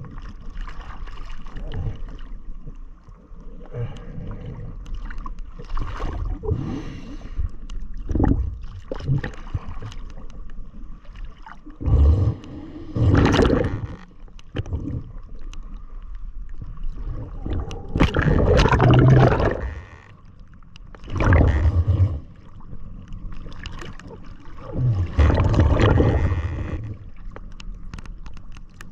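Sea water sloshing and gurgling around a waterproof camera held at the surface, with several loud surges as swells wash over it.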